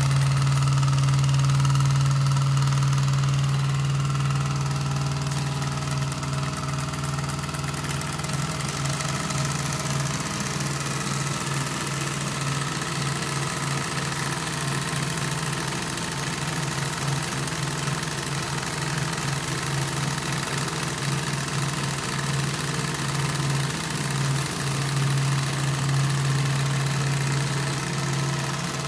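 Two vertical Bing toy steam engines running steadily, with a constant hum. They are driving model workshop tools through thin belts, which are there as a load to slow them.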